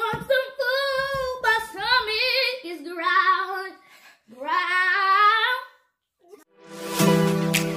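A boy singing short unaccompanied phrases, with a pause about four seconds in and another near six seconds. About a second before the end, instrumental background music comes in.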